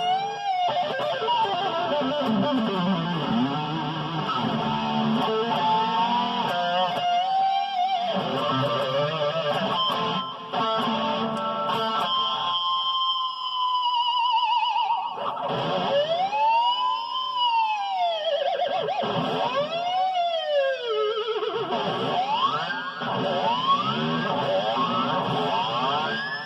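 Electric guitar with active EMG pickups played through an amplifier with effects, sustained notes and chords; in the second half the pitch swoops up and back down several times as the Floyd Rose tremolo bar is worked.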